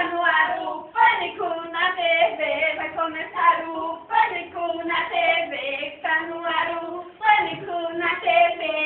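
A child singing a tune in short, rhythmic phrases.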